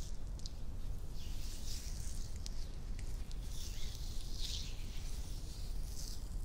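Hands and fingertips rubbing and brushing over skin close to the microphone: several soft swishes, with a few light ticks between them.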